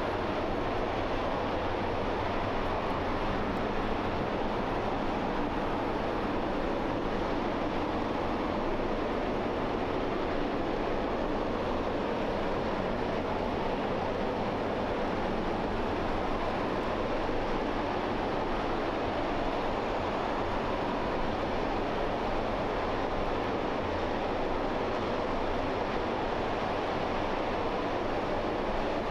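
RS-25 liquid-hydrogen/liquid-oxygen rocket engine firing on a test stand, a steady, unbroken roar at constant thrust.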